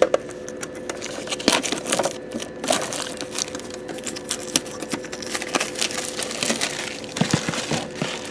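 Plastic shrink wrap crinkling and rustling as sealed metal trading-card tins are unwrapped and opened, with irregular clicks and taps of handling throughout and a faint steady hum underneath.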